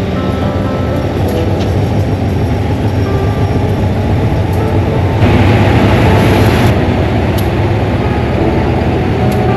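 GE diesel-electric locomotive running with a steady low rumble as the train stands or creeps at the platform. A hiss of air starts abruptly about five seconds in and cuts off about a second and a half later.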